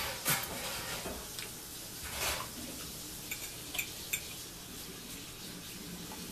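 Eating sounds close to the microphone: a few bursts of chewing and mouth noise, with several light clicks of cutlery against a plate about halfway through.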